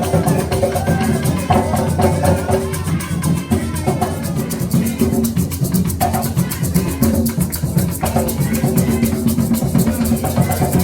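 Music with maracas shaking a fast, steady rhythm over plucked strings and drums.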